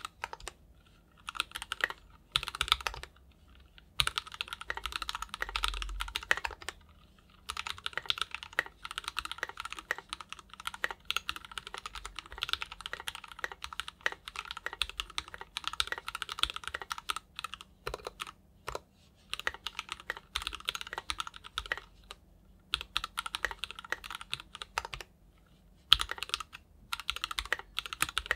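Typing on a mechanical keyboard with SP-Star Meteor White switches in a KBDFans 5 Degree case: fast runs of key strokes broken by short pauses.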